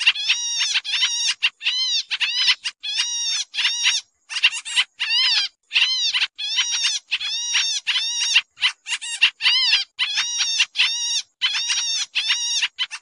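Pied triller (kapasan kemiri) calling in a rapid, busy string of short harsh arched notes, about two or three a second with brief breaks, as used for a bird-lure call.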